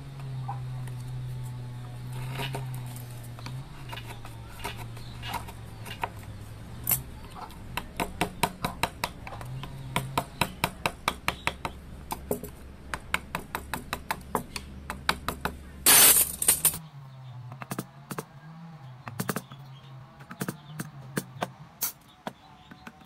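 Hand carving gouges being struck and driven into wood: a run of sharp taps, about two or three a second, over a low steady hum, with one loud brief rush of noise near the end.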